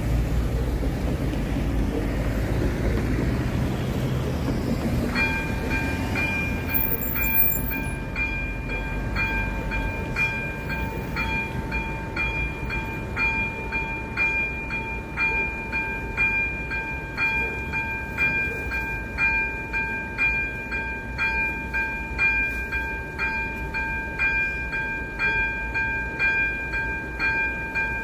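Railway level-crossing electronic warning bell that starts ringing about five seconds in, with steady repeated strokes of about one and a half a second: the crossing has been activated and its barriers are about to come down. Before it, the low rumble of road traffic.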